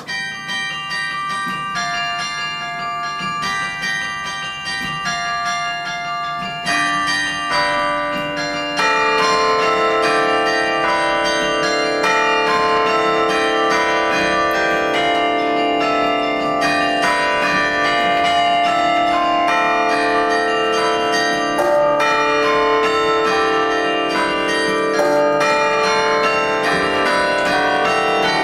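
Carillon being played: tower bells ringing a melody, the notes ringing on and overlapping. It begins with a few sparse notes, then grows fuller about seven seconds in and louder about nine seconds in.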